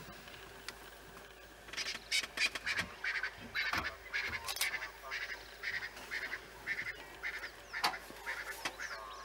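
A pack of African wild dogs giving short, high twittering calls. They begin about two seconds in and repeat about three times a second.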